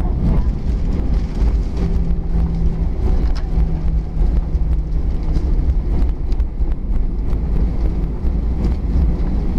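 Cabin noise of an Airbus A320 rolling along the runway after landing: a steady low rumble from the wheels and engines, with a faint steady hum that comes in about two seconds in and fades a few seconds later.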